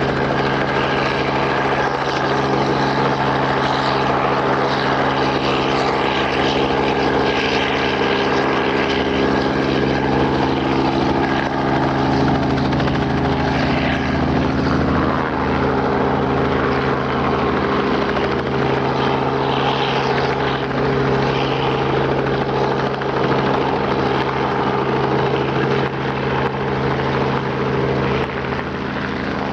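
Robinson R44 helicopter in a low hover close by, its rotors and piston engine running steadily. The sound eases off a little near the end as it turns and starts to move away.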